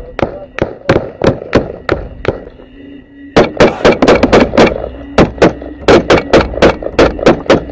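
Assault-rifle fire at close range: single shots about three a second, a lull of about a second, then a fast string of shots, some nearly overlapping, that keeps going.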